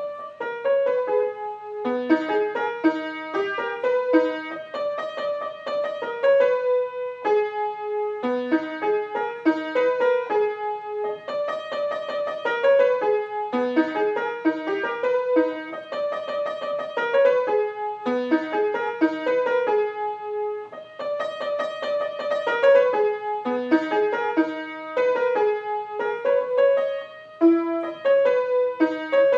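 A keyboard played in a piano voice: a melody of quick single notes over lower notes, with the same phrase coming round again every few seconds.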